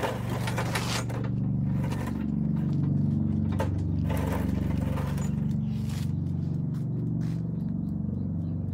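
An engine idling steadily: a low, even drone with a fine, regular pulse.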